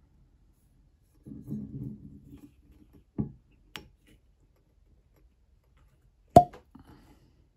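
Wood-topped cork stopper being twisted and worked out of a glass whisky bottle's neck: a low rubbing of cork on glass and a couple of small clicks, then a sharp pop a little past six seconds in as the stopper comes free.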